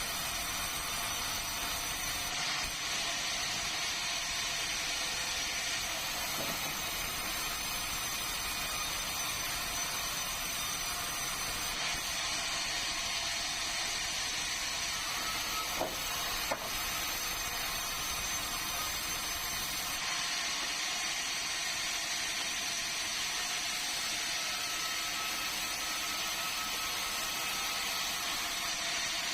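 Sawmill saw machinery running steadily with a constant hiss, and two short sharp knocks about sixteen seconds in.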